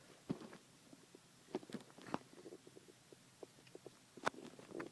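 Faint, scattered small clicks and crunches of a hamster nibbling food, with a sharper click about four seconds in.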